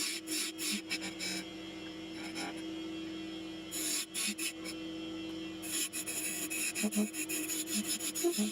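Wood lathe running with a steady hum while a round carbide tool scrapes out the inside of the spinning wooden box, hollowing it. The scraping comes in rough, uneven passes and drops away twice in the middle, leaving mostly the lathe's hum.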